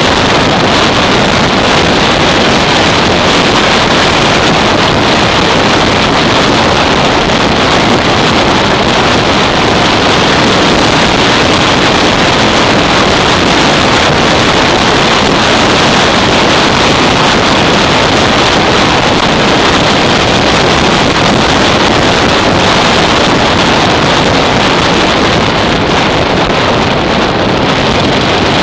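Loud, steady wind buffeting on the microphone of a moving motorcycle, with the Yamaha SR 500's single-cylinder four-stroke engine running underneath at a steady cruise.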